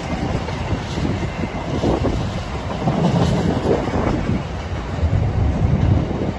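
Intermodal container freight wagons rolling past on the line below, a steady heavy rumble of wheels on rail with irregular clatter and knocks as the bogies go by.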